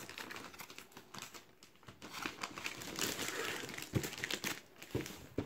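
Clear plastic wrapping crinkling and rustling around a cardboard doll box as hands grip and rub over it. It grows louder about three seconds in, with a single knock near four seconds.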